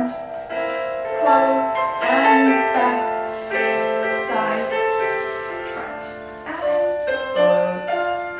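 Piano music for a ballet barre exercise, in a slow classical style, with notes struck at an unhurried, steady pace.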